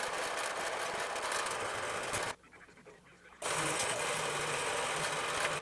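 Harbor Freight horizontal metal-cutting band saw running and cutting through a copper block, a dense hissing, grinding noise. It plays in two stretches that start and stop abruptly, with a short quiet break a little over two seconds in.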